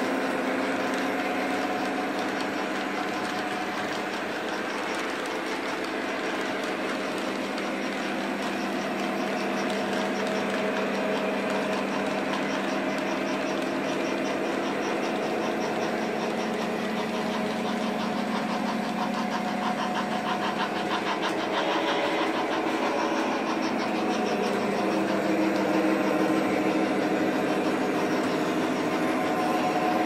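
Model Lionel SD60M diesel locomotive's onboard diesel engine sound effect running steadily, mixed with the rolling clatter of model train wheels on three-rail track. About two-thirds through, the engine note falls and then rises again.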